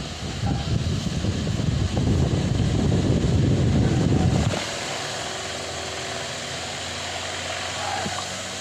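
Delta Gold 50 cm wall fan running: for about the first four and a half seconds its airflow gives a loud, gusty rumble on the microphone, then it drops suddenly to a quieter, steady motor hum.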